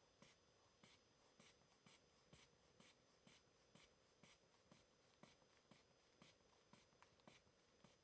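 Faint, even squeezes of a sphygmomanometer's rubber inflation bulb, about two a second, each a short puff of air. This is the blood-pressure cuff being pumped up toward 180 mmHg before the reading.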